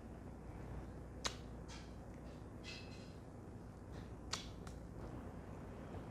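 Sharp snapping cracks from an Indian barber's hands during a head massage: a loud crack about a second in, two softer ones past the middle, and faint rubbing strokes between.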